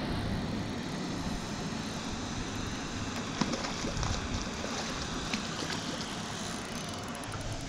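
Wind buffeting the microphone: an uneven low rumble under a steady rushing hiss, with a few faint ticks around the middle.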